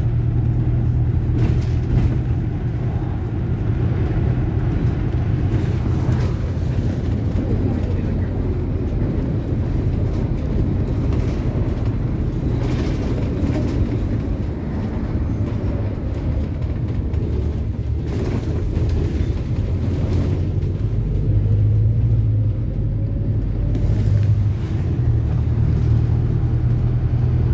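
A city bus running on the road: a steady low engine and road rumble, with a faint whine rising in pitch in the second half.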